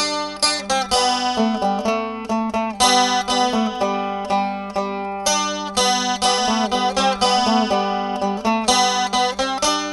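Instrumental music led by plucked strings, with a quick run of short picked notes over a sustained low chord.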